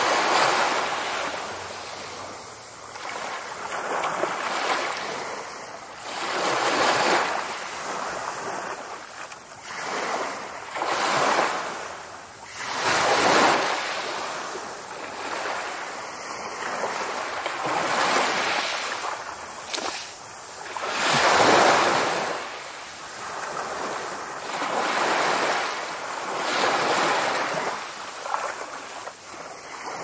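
Small ocean waves washing up on a sandy beach and drawing back, a rush of surf that swells and fades every two to four seconds.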